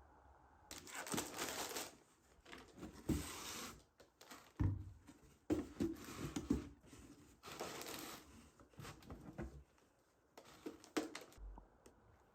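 Irregular rustling, scraping and knocking of things being handled at close range, in uneven bursts with a few sharp knocks.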